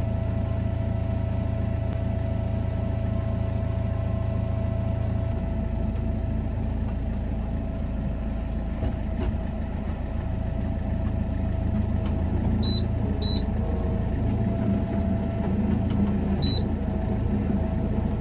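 Farm tractor's diesel engine running steadily, its note shifting about five seconds in. Three short high beeps near the end, two close together and one a few seconds later.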